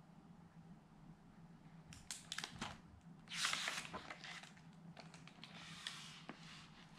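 Faint handling of a hardcover picture book: a few light clicks, then the swish of a paper page being turned about halfway through, followed by soft rustling as the new spread is pressed flat.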